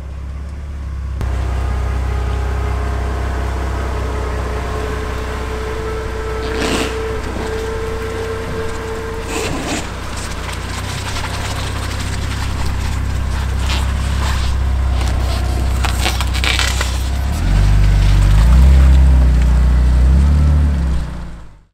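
Car driving: a steady low engine and road drone with a few sharp clicks and knocks. For the last few seconds the engine revs harder, rising in pitch, before the sound cuts off abruptly.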